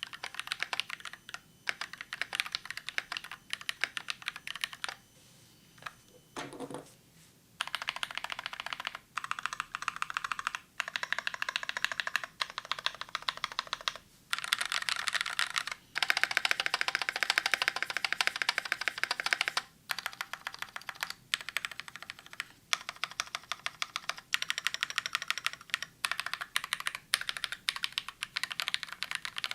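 Fast typing on a KBD67 mkii custom mechanical keyboard with a brass plate, Novelkeys Cream linear switches and PBT keycaps: rapid keystroke clacks in bursts with short pauses, the densest and loudest run near the middle.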